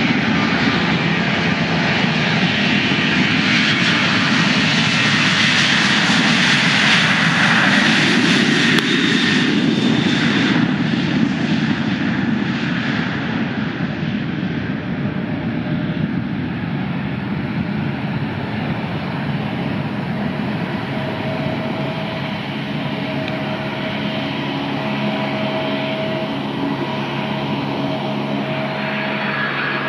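Aircraft engines passing close by: a loud rushing engine noise that peaks around eight seconds in, dropping in pitch as it goes past, then settling to a steadier, quieter engine drone with a few held tones.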